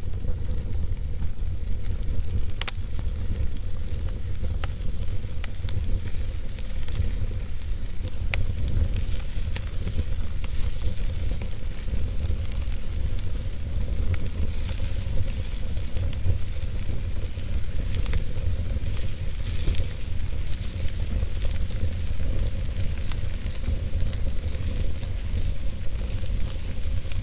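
Wood fire burning in an open fireplace: a steady low rumble and hiss, with irregular crackles and a few sharper pops.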